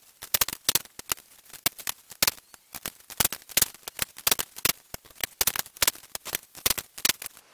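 Click-type torque wrench working the main bearing cap bolts of a 5.9 Cummins 12-valve block up to the final 130 ft-lb: a fast, uneven run of sharp ratchet clicks, with the wrench's release click as each bolt reaches torque. The clicking stops just before the end.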